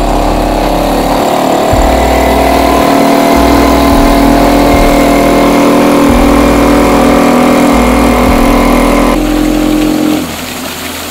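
Small 2.5 hp outboard motor running at full throttle, its pitch climbing over the first couple of seconds and then holding steady. The sound changes about nine seconds in and falls off about ten seconds in.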